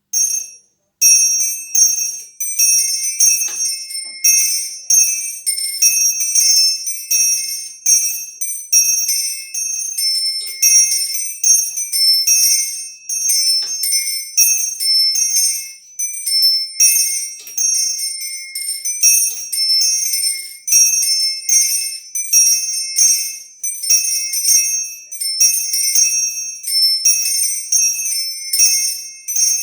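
Small bells of a miniature home bell tower chimed in a rapid scampanio: quick overlapping strikes from several high-pitched bells, each ringing on. The bells are rigged with chains and are not well in tune with one another. The peal starts about a second in.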